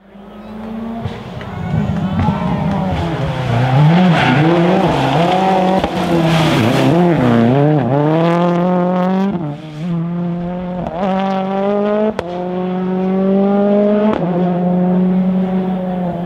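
Rally car engine at full throttle on a tarmac stage, the revs rising and falling through gear changes with a few sharp pops near the middle. The car comes in quickly at the start and then holds high revs.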